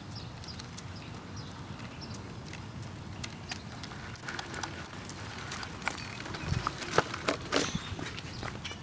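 Footsteps and scattered clicks from people walking along a concrete sidewalk beside a child's small bicycle, over a steady low rumble. The clicks come more often in the last couple of seconds.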